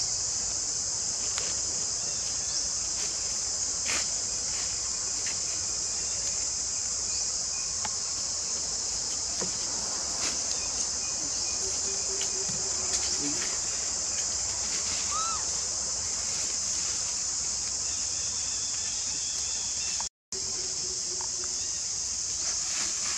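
Steady high-pitched drone of insects in the forest, with faint scattered clicks and short squeaks underneath. The sound cuts out for a split second near the end.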